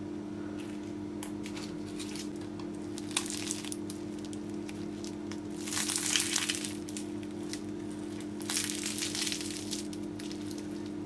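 Crisp, flaky boyoz pastry made from hand-stretched dough crackling as it is pulled apart by hand, in three short bursts, the loudest about six seconds in. A steady low hum runs underneath.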